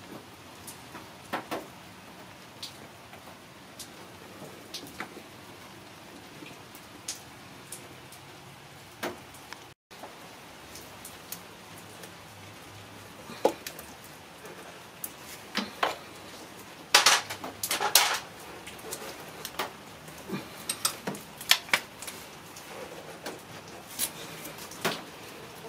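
Metal hand tools clinking and knocking in irregular, scattered strikes, with a louder burst of clatter about two-thirds of the way through.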